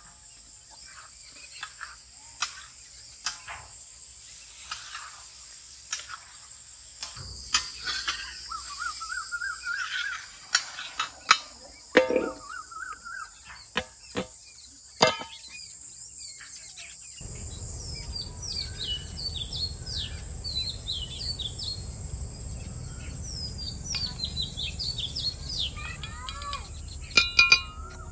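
Birds chirping over a steady high hiss. In the first half there are scattered sharp knocks of a metal spatula against a large iron griddle pan.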